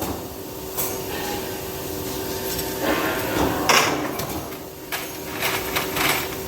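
Metal parts clanking and knocking in a few separate hits, the loudest a little after halfway and several close together near the end, over a steady machine hum.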